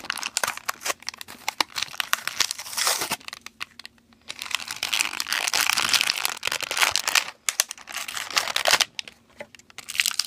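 Crinkly plastic toy packaging being handled, crumpled and torn open by hand, in bouts of dense crackling with a short pause about three seconds in.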